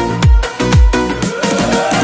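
Instrumental passage of a Persian pop song with a dance beat: a deep kick drum about twice a second under steady chords, and a gliding sound rising in pitch through the second half.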